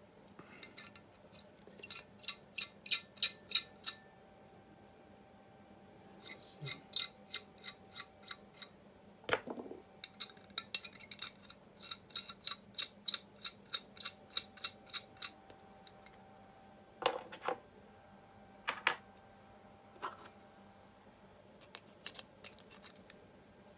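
Flathead screwdriver working screws on a restored hand leveler, giving runs of quick, evenly spaced metallic clicks with a few single knocks in between.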